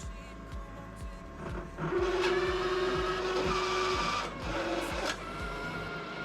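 IGT S2000 slot machine powering up, its motors whirring with a steady whine for about three seconds. Background music with a steady beat plays under it.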